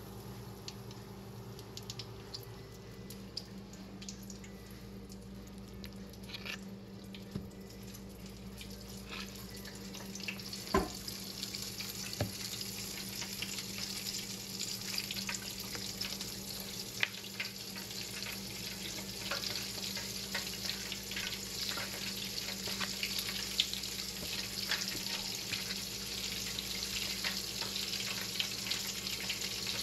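Chicken frying in hot oil in a skillet: a sizzling hiss full of small crackles that grows gradually louder. A couple of knocks sound about halfway through.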